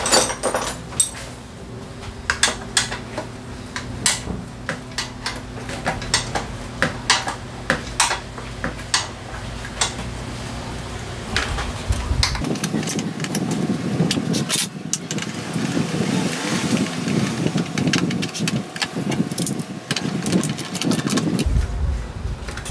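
Irregular metallic clicks and clinks of hand tools against scooter parts, over a steady low hum. About halfway through, the hum gives way to a rougher, noisier background.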